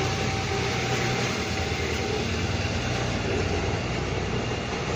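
Truck engine and road noise heard from inside the cab while driving: a steady drone with a low engine hum.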